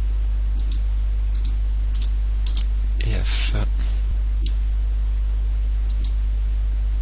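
Computer mouse and keyboard clicks, a handful of single clicks spread out over several seconds, over a steady low electrical hum.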